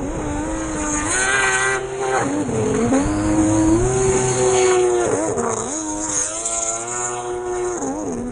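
Stand-up jet ski engine revving under changing throttle. The pitch climbs and holds, then drops sharply and climbs again, about three times, as the throttle is chopped and reapplied through turns.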